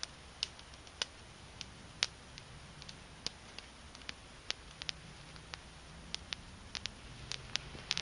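Small fire of split Douglas fir and feather sticks crackling: irregular sharp pops and snaps, two or three a second, over a low steady noise.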